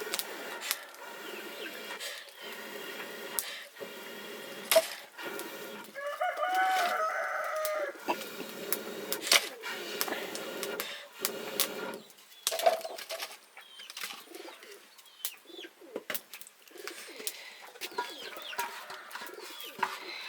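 Domestic chickens clucking, with a louder drawn-out call of about two seconds starting about six seconds in. Scattered sharp clicks and knocks run through the whole stretch.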